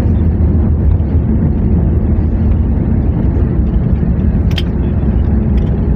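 Steady low rumble of an airplane, with one short click about four and a half seconds in.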